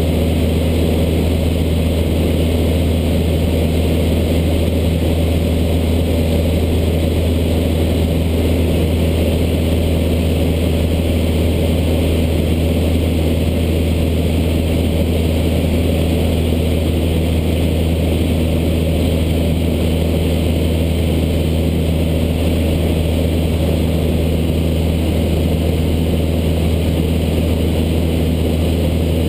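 Single-engine Cessna's piston engine and propeller running at a steady setting in level flight, a constant drone with no change in pitch.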